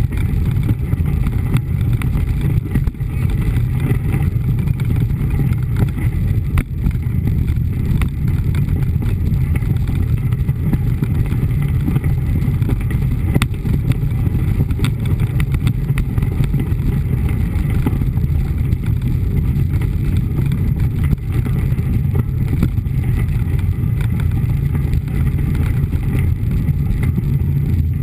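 Steady low rumble of a mountain bike's knobby front tyre rolling over a gravel road, picked up by a camera mounted on the front fork, with scattered small knocks and rattles from bumps.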